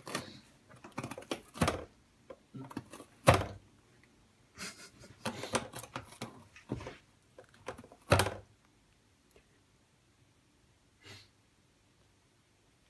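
A cat biting and tearing pieces off the rim of a cardboard box: irregular sharp rips and crunches of cardboard, many in the first eight seconds, then one more about eleven seconds in.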